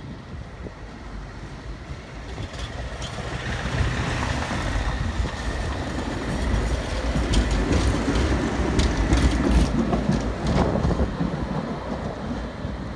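Single-car tram passing close by, its wheels rumbling and clicking sharply over the rail joints and crossings of a track junction, with a faint high squeal as it takes the curve. The noise swells as it nears, peaks a few seconds later, then eases off as it pulls away.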